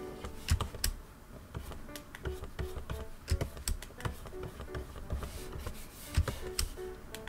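Stylus nib tapping and clicking against the screen of a Gaomon PD1560 pen display in quick, irregular strokes, with soft background music underneath.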